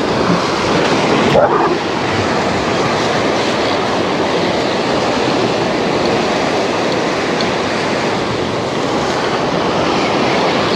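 Waves breaking and washing against the boulders of a rock breakwater: a steady rush of surf.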